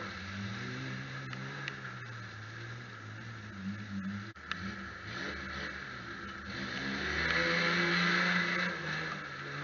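1976 Ford F250's 250 cubic-inch crossflow straight-six revving as the truck circles in mud, its 37-inch Maxxis Mudzilla tyres spinning. The revs rise and fall, with a sudden break about four seconds in and a louder, higher run of revs near the end.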